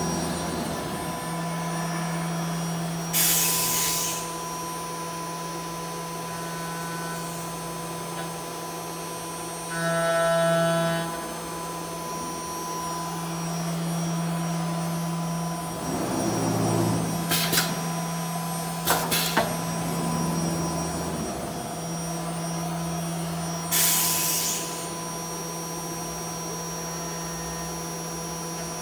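4-axis aluminium-profile CNC machine running with a steady hum. Two short hisses of compressed air come a few seconds in and again near the end, and a few sharp clicks come in between.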